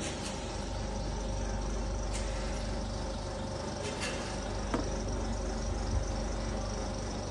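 A steady machine hum with a throb, and a few faint clicks over it.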